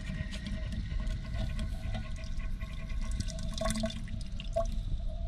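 Water running from a garden tap into a welded steel exhaust pipe section during a water leak test, with water leaking out through the welds.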